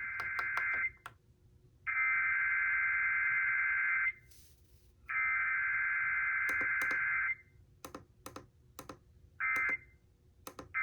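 Emergency Alert System weekly test data tones played over a radio: the buzzy two-tone SAME header ends about a second in and is sent twice more, each burst about two seconds long. About nine seconds in comes one short end-of-message burst. Sharp clicks are scattered through the pauses.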